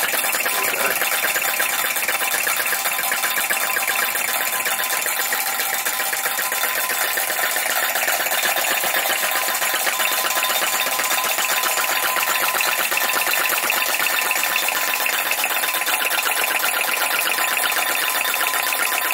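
A PM Research #3 flame licker vacuum engine running fast and driving a model gold battery stamper by a belt, making a rapid, steady mechanical clatter. It holds an even pace throughout.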